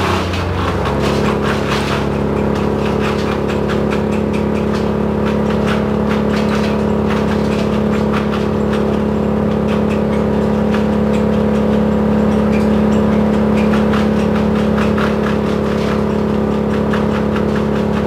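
Mobile crane's engine running at raised revs as it hoists a cut pine top into the air, settling to a steady pitch about a second in.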